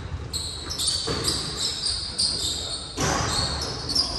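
Irregular thuds echoing in a large hall, about half a second to a second apart, over indistinct voices.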